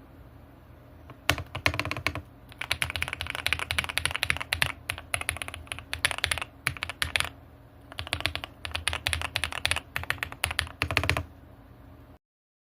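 Typing on a Kisnt 75% mechanical keyboard, with quick runs of creamy key clicks and two short pauses. The typing stops a little before the end.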